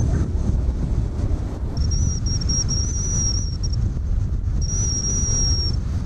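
Wind buffeting the microphone over the distant rumble of Blue Impulse Kawasaki T-4 jets flying in formation. A thin, high, steady whistle comes in about two seconds in, breaks off, and returns briefly near the end.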